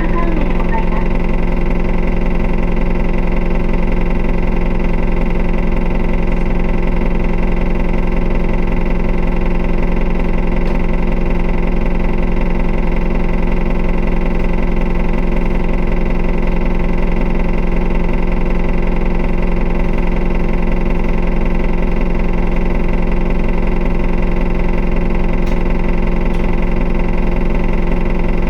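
Isuzu Erga city bus's four-cylinder turbo diesel idling at a steady, unchanging pitch, heard from inside the cabin.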